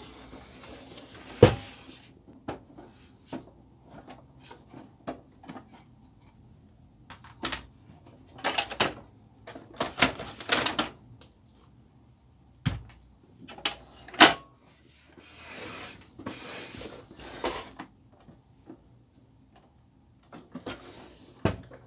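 Canon laser printer's plastic casing being handled: the cover is opened and the machine shifted and turned over, giving an irregular run of clicks and knocks, the sharpest about a second and a half in and again near the middle, with some rubbing and sliding in between.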